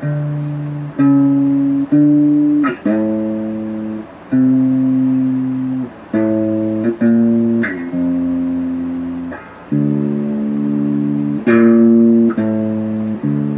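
Electric guitar strummed slowly, a run of held chords each ringing for about a second before a short break and the next chord change.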